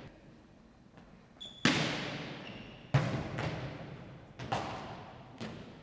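Volleyballs being struck and bouncing in an echoing gym during a digging drill: two sharp smacks, then two lighter ones, each ringing on in the hall. Sneakers squeak on the hardwood floor between them.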